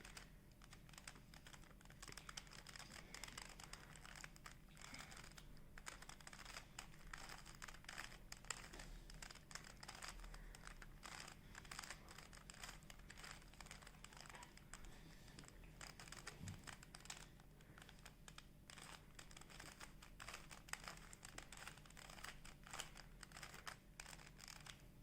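Faint, irregular plastic clicking of a 3x3 Rubik's cube's layers being turned over and over, as the right-hand move sequence is repeated to set the bottom-layer corners.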